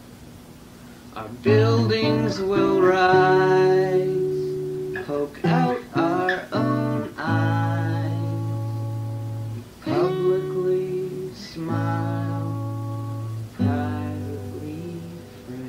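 Acoustic guitar strumming chords that ring out between strums, with a run of quick strums about five to seven seconds in.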